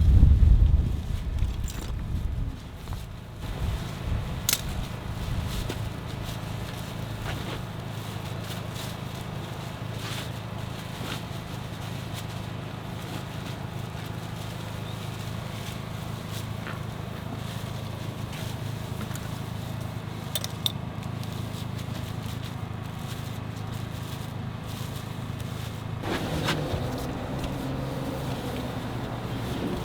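Scattered clicks and light scrapes of tools and parts being handled inside a car's interior, over a steady low hum. Wind rumbles on the microphone at the start.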